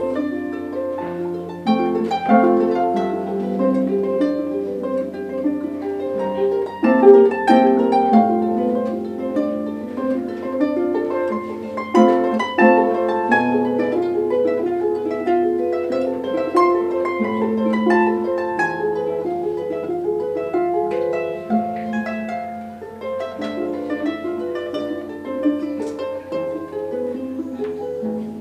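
Solo harp playing: a flowing passage of plucked notes that ring on into one another, with a few louder accented plucks along the way.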